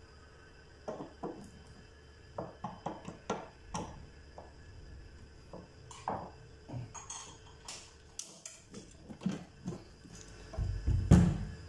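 Irregular knocks, clicks and metallic clatter from handling a benchtop laboratory centrifuge's metal casing and panel during reassembly, with a louder low thump near the end.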